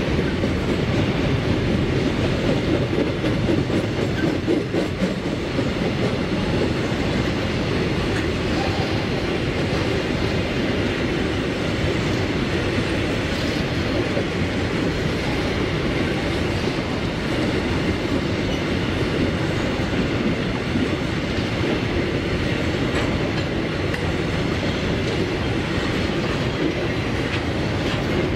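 Freight train wagons rolling past, a steady rumble with the clatter of steel wheels on the rails.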